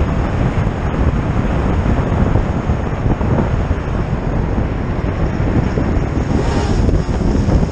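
Heavy wind noise on the microphone of a camera on a moving motorcycle at road speed: a steady, loud rush over the low rumble of the bike on the road.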